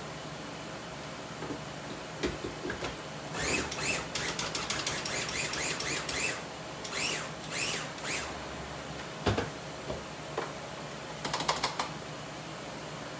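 Hand-operated food chopper chopping salsa ingredients: a busy run of rapid clicks and short whirring sweeps, a thump, then another quick burst of clicks near the end.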